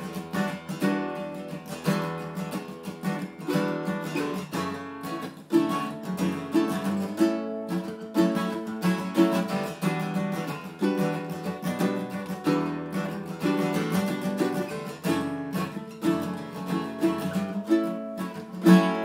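Acoustic guitar and ukulele strumming together in a steady rhythm: the instrumental opening of a folk song, before any singing.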